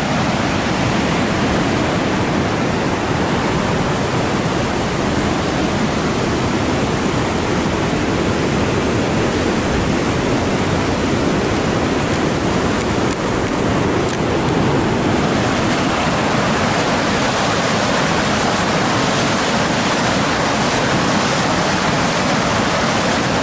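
Steady rushing roar of the flooded Huron River's whitewater rapids, swollen over its banks by rain and snowmelt. The hiss grows brighter about fifteen seconds in.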